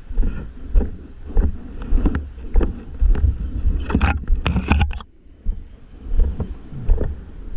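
Off-road vehicle driving over rough ground: a low rumble with wind on the microphone and irregular knocks and thuds from the vehicle jolting, easing off briefly about five seconds in.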